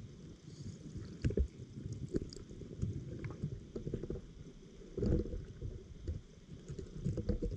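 Underwater ambience picked up through a GoPro's waterproof housing: a muffled low rumble of moving water with scattered faint clicks and ticks. A couple of louder knocks stand out, about a second in and again near five seconds.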